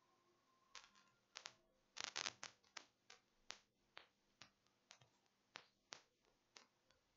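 A series of about a dozen small, sharp clicks and taps at uneven intervals, with a quick cluster about two seconds in: small tools handled on a repair bench during micro-soldering work.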